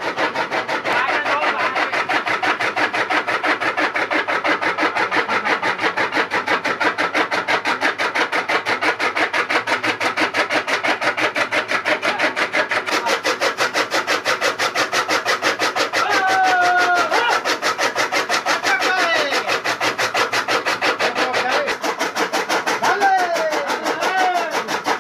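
Electric chaff cutter (toka) running and chopping green fodder as it is hand-fed into its blades, a loud, fast and even chopping rhythm over the motor's drive.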